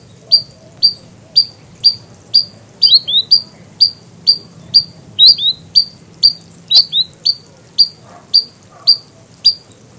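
Spotted sandpiper calling: a steady series of short, sharp, high 'weet' notes, about two a second, with a few coming as quick double notes.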